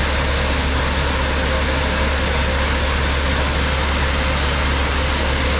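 Grain bin unload augers running, pulling corn out of two bins at once into a grain truck: a steady rushing noise over a constant low hum.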